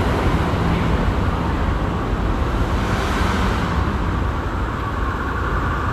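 Steady highway traffic noise: a continuous rumble and rush that swells briefly about three seconds in, like a vehicle passing.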